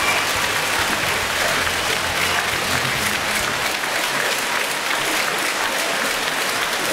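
Large arena crowd applauding, a steady dense clapping of many hands.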